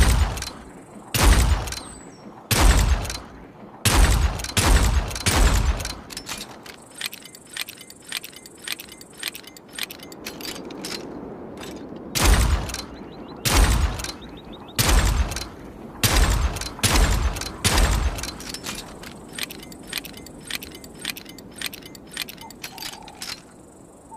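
.38 revolver firing: two strings of about six shots each, several seconds apart, with quieter clicks between and after the strings.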